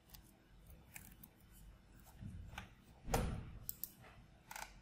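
Computer keyboard keys being typed, a few scattered clicks with pauses between them and one louder knock about three seconds in.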